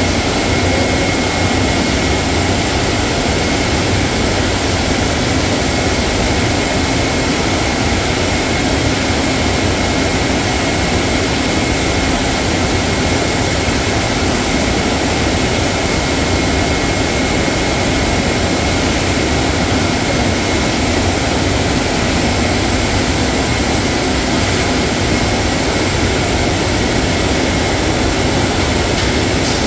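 Steady, loud rushing noise of a seafood processing line: water spraying from overhead nozzles onto crab baskets on a stainless-steel conveyor, with machinery running under it. A faint steady high whine runs through it.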